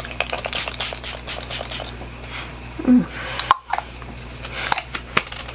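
Plastic setting-spray bottle being handled: a quick run of light clicks and rubs over the first couple of seconds, more scattered clicks later, and a brief low hum of the voice about 3 s in.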